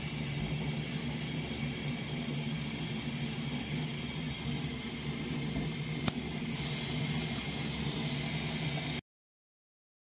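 Steady hiss with a low hum underneath and a single click about six seconds in; it cuts off abruptly about nine seconds in.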